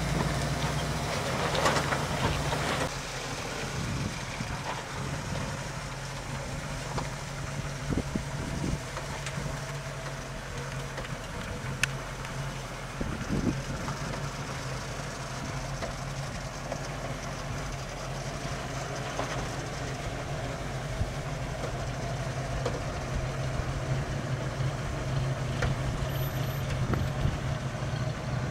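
1971 Ford Bronco's carbureted 302 V8 running steadily as the truck crawls over slickrock, with a few sharp knocks and clicks scattered through.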